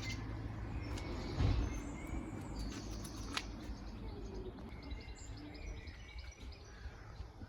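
Outdoor ambience: small birds chirping over a steady low rumble. A louder low thump comes about a second and a half in, and a sharp click a little after three seconds.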